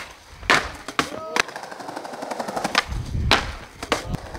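Skateboard on a ledge-and-stairs spot: a sharp crack of the tail popping, then a run of loud clacks and slams as the board and wheels hit the granite ledge and the ground, with the wheels rolling over the paving stones in between.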